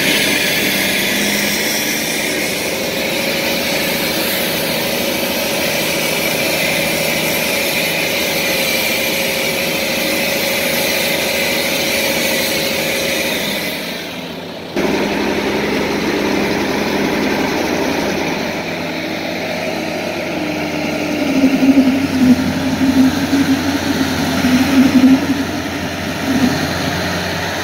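Farm tractor engines running steadily at low speed while a tractor moves slowly along pavement. The sound breaks off and resumes abruptly about halfway through, and in the last few seconds a deeper engine note pulses up and down.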